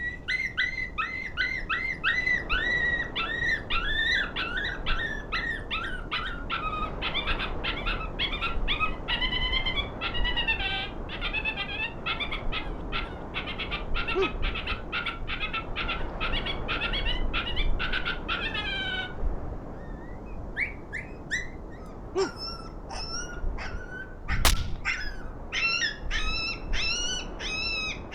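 Electronic predator call playing coyote pup whimpers and yelps: rapid high-pitched cries several a second, giving way about two-thirds of the way through to sparser, higher whines. Wind noise on the microphone, and one sharp knock near the end.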